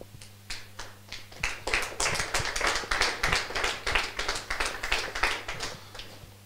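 A small congregation applauding: scattered hand claps that thicken into irregular clapping about a second and a half in, then die away near the end.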